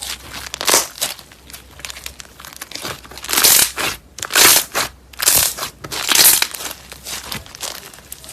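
Slime being squeezed and worked by hand, giving crinkly, crackling sounds that come in surges, four of them louder in the middle, with fine clicking between.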